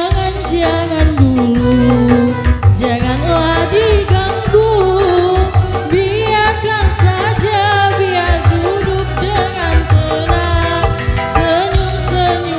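Dangdut koplo music played live: a wavering, ornamented lead melody over a steady driving drum and bass rhythm.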